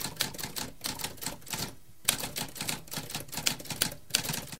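Typewriter typing: a rapid, uneven run of key strikes, with a short pause about two seconds in, then a loud strike and more typing, cutting off suddenly at the end.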